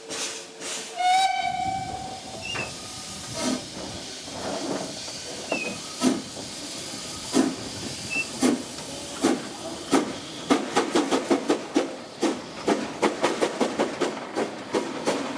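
Narrow-gauge steam locomotive 52 MH, a four-coupled engine built in 1914, sounds its whistle once, briefly, about a second in. Steam hisses, and the exhaust chuffs come slow and spaced at first, then quicken to a rapid beat of about four a second near the end as the engine works its train.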